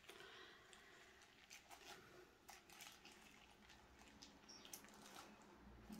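Near silence, with faint scattered crackles and soft squelches of plastic wrap being peeled slowly back off wet acrylic paint.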